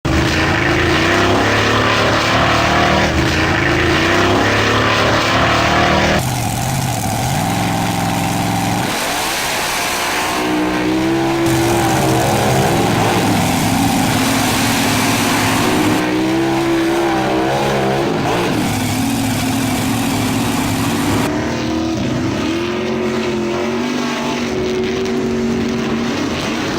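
Added car engine sound effects: engines revving up and down, changing abruptly to a different engine sound every few seconds.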